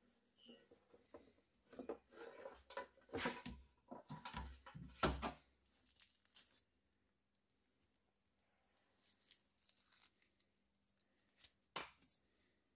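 Faint handling noise: a gloved hand rustling, scraping and knocking against the idle air compressor's metal parts for several seconds, then one sharp click near the end.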